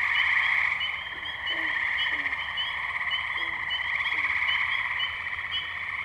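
Chorus of tree frogs calling together: a dense, fast-pulsed trill with short rising peeps repeating above it and occasional lower short calls beneath.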